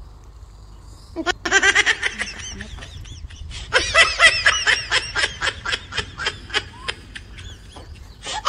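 A person laughing close to the microphone in a long run of quick, high-pitched bursts that trail off, then a short second burst of laughter near the end.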